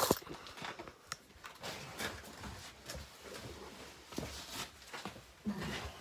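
Irregular scuffs and knocks of shoes and hands on rock, with clothing rustle, as people scramble over loose boulders and rubble in a cave.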